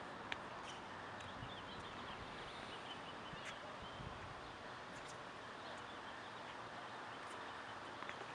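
Quiet outdoor ambience with birds chirping, and a few faint sharp knocks from tennis balls being hit during a rally.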